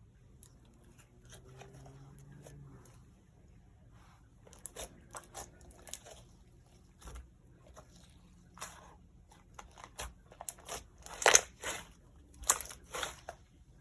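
Slime being squished and pressed by hand, giving a run of sticky clicks and crackles that grows busier and louder toward the end.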